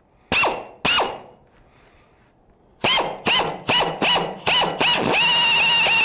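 Pneumatic air drill with a hole saw, run in short trigger bursts that each spin up and wind down. It goes twice early on, then six quick times, then from about five seconds in it is held at a steady run as the saw starts into the tube at an angle.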